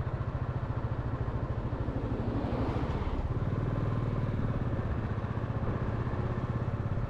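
Vehicle engine running steadily at an even speed, with a fast regular pulse.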